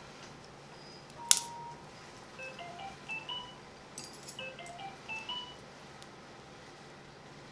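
Electronic alert tones: a sharp click with a short beep about a second in, then a quick rising run of about four tones, heard twice.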